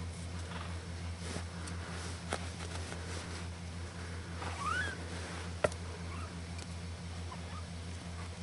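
A four-week-old kitten gives one short rising mew about halfway through, over a steady low hum. There are a few faint taps, and one sharp click comes just after the mew.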